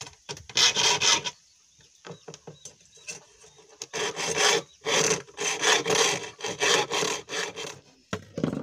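Bow hacksaw cutting a steel spear-gun rod by hand, with back-and-forth scraping strokes. After one stroke at the start there is a quieter pause of about two seconds, then the strokes come steadily at roughly two a second.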